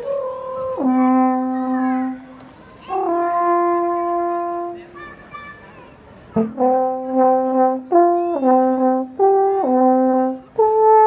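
Alphorn playing a melody: two long held notes in the first half, then after a short pause about six seconds in, a quicker run of notes stepping up and down.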